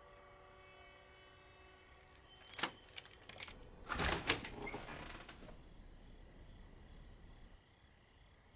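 Low held music tones fading out, then a few sharp clicks and a brief cluster of knocks and rustling about four seconds in, with a faint high steady tone lingering after.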